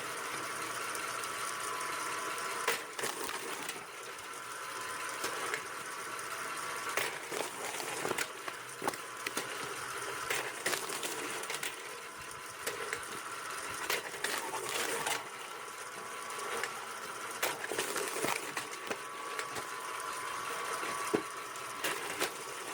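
Homemade rack-type wood splitter running on its 1.5 kW electric motor with chain drive: a steady motor hum with irregular knocks and clacks as the rack works and logs split.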